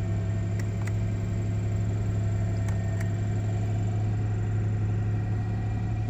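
Toyota 4Runner's 3.4-litre 5VZ-FE V6 engine running steadily, with a few faint clicks twice in quick succession early on and again about three seconds in.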